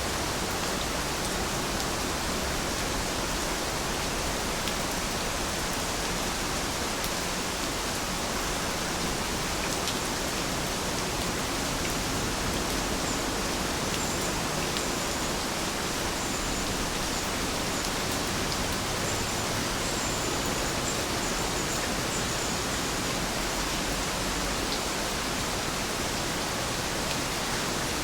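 Steady rain falling, an even hiss with scattered drop ticks. A few faint high chirps come through about halfway.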